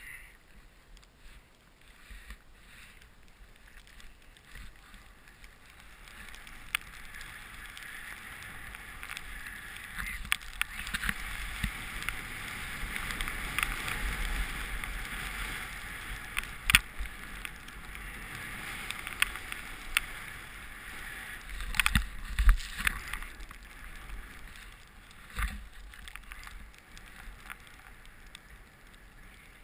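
Snowboard sliding and turning through deep powder snow: a steady hiss that builds over the first several seconds, swells and eases with the turns, and fades toward the end. A few sharp knocks stand out in the second half.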